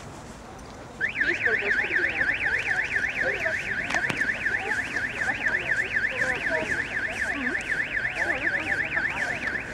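Electronic alarm tone warbling rapidly up and down in pitch, about four sweeps a second, like a car alarm siren. It starts about a second in and stops near the end.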